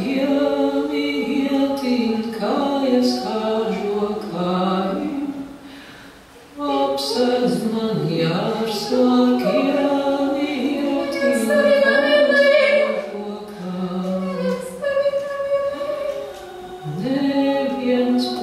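Unaccompanied singing: held, sung notes that step from pitch to pitch, with a short break about six seconds in.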